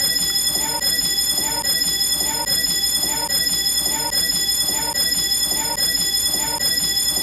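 Building fire alarm going off: a steady, piercing high-pitched tone, with a lower pulsing sound repeating a little more than once a second.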